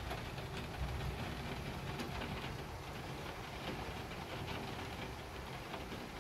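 Heavy rain falling steadily in a downpour, an even hiss with fine pattering, over a steady low rumble.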